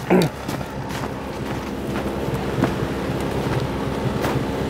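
Ski-Doo Expedition snowmobile engine running steadily and slowly growing louder, with a brief shout falling in pitch right at the start.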